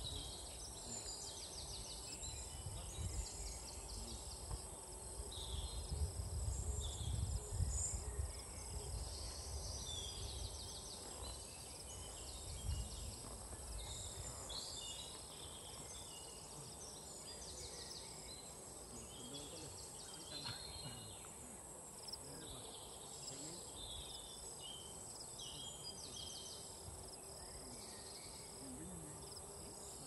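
Outdoor rural ambience: birds and insects chirping in many short high calls, over a low rumble that is louder in the first several seconds.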